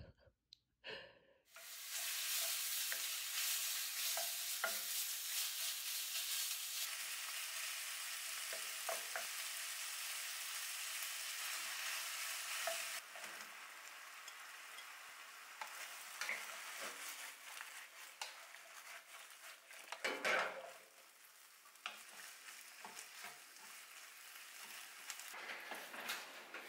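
Food frying in a pan with a steady sizzle, loud for the first ten seconds or so and then quieter. Scattered light clicks of a utensil stirring run through it, and there is one stronger knock about twenty seconds in.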